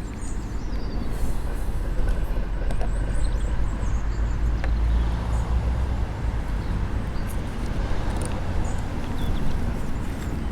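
A train passing on a nearby railway line: a low rumble that builds to its loudest about halfway through and then eases off. Birds chirp faintly over it.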